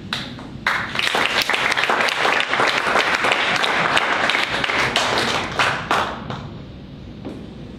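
Audience applauding, starting about a second in and dying away after about six seconds.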